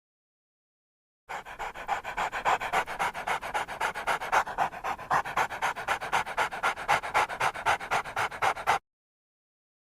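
Dog panting rapidly and evenly, about six breaths a second. The panting starts abruptly about a second in and cuts off sharply near the end.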